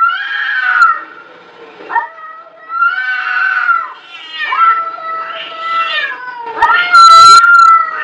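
Cats caterwauling at each other in a face-off: a string of long, wavering yowls, one after another, with the loudest and harshest cry near the end. This is the threat yowling that comes before a fight.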